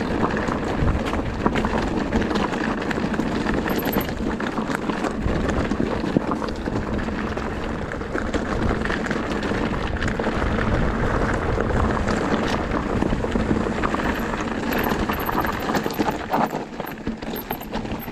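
Electric enduro mountain bike being ridden down rocky singletrack: tyres crunching over stones and gravel, with a dense, continuous run of small knocks and rattles from the bike.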